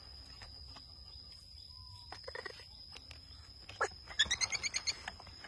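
Short high-pitched animal calls: a few quick squeaks about two seconds in, a sharp falling squeak near four seconds, then a fast run of chirps, over faint clicks.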